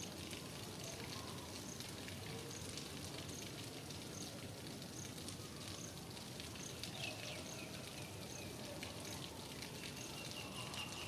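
Steady rainfall with individual drops pattering on surfaces. A high-pitched chirp repeats evenly about once a second throughout, and brief bird calls come in about two-thirds of the way through and again near the end.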